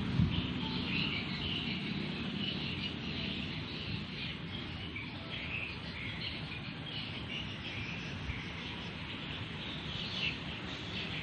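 Outdoor ambience: high, irregular chirping of insects and birds over a low steady rumble, with a brief bump near the start.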